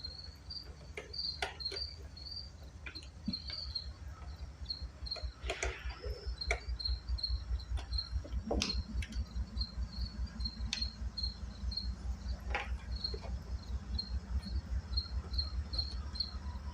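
Crickets chirping steadily over a low, evenly pulsing hum, with scattered sharp clicks and knocks of small parts and hand tools being handled on a small portable generator.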